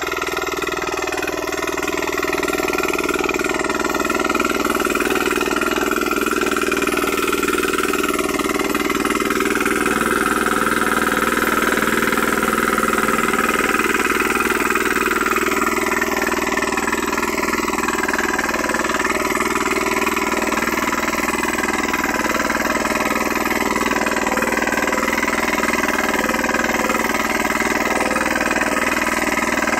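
KisanKraft 9 hp single-cylinder diesel power weeder running steadily under load while its rotary tines till the soil.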